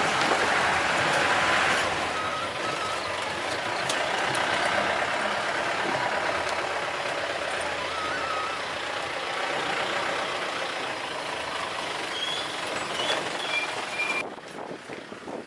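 Open safari vehicle driving along a jungle track: steady engine and rushing road and wind noise, with a few short high chirps over it. The noise drops away suddenly near the end.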